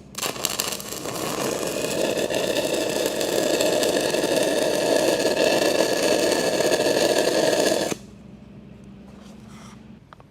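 Stick-welding arc on steel pipe, a steady loud crackle lasting about eight seconds that stops abruptly, followed by a low steady hum.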